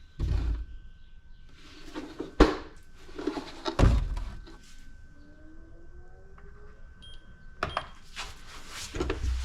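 Handling sounds: a few separate knocks and thunks, the sharpest about two and a half seconds in, with quieter rustling and shifting between them. A faint steady high tone sits underneath and stops about eight seconds in.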